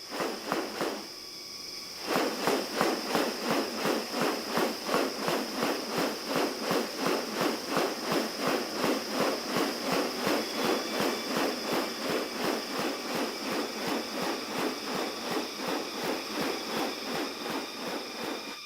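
Rainforest sound with a steady high insect drone. About two seconds in it is joined by a loud, rhythmic pulsing call at about four pulses a second, which keeps going to the end.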